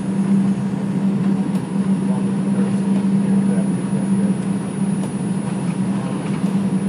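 An R142 subway train running along elevated track, heard from inside the car: a steady rumble of wheels on rail over a constant low hum.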